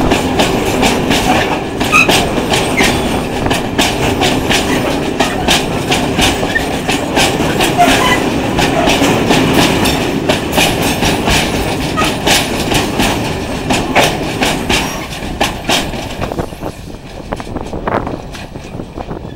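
Freight train of flat wagons loaded with steel coils rolling past close by, its wheels clacking over the rail joints in a rapid run of knocks. The sound fades away as the last wagon passes, about seventeen seconds in.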